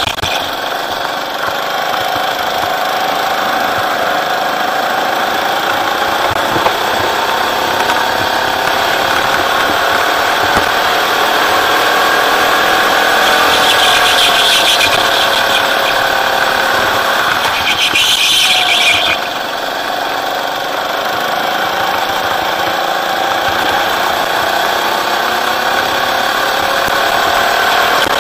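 Rental go-kart engine heard onboard, its pitch rising and falling as the throttle is opened and eased through the corners. The tyres squeal briefly twice around the middle, and the engine drops back just after the second squeal.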